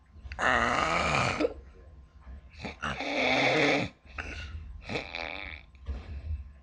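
A woman snoring: two long, loud snores about two and a half seconds apart, then softer, shorter breaths.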